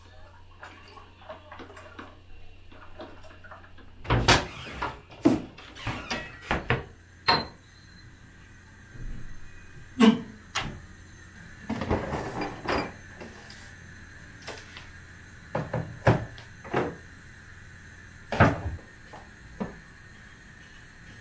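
Kitchen handling sounds: cupboard and fridge doors opening and closing, with dishes and glasses knocked and set down. A few faint ticks at first, then from about four seconds in a string of sharp knocks and clatters.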